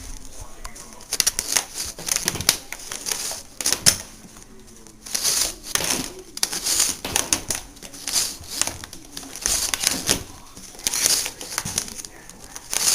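Irregular clicks, knocks and rustling of a vacuum cleaner's plastic body and tangled power cord being handled while the cord is untangled.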